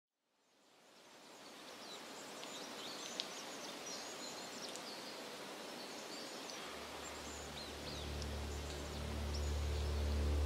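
Outdoor woodland ambience fading in: a steady airy hiss with small birds chirping. About two-thirds of the way in, a low sustained musical drone comes in and swells.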